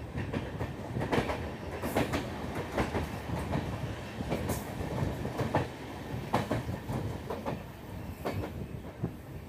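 Passenger train running on the track, heard from an open coach door: a steady rumble of the wheels with irregular sharp clacks and knocks as they pass over the rails.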